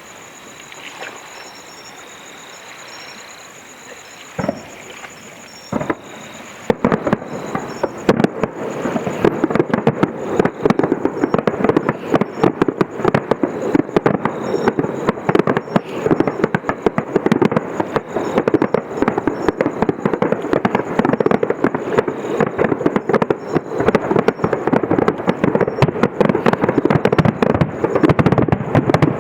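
Fireworks display: a couple of single bangs about four and six seconds in, then from about seven seconds a dense, rapid barrage of bursts and crackles with no let-up.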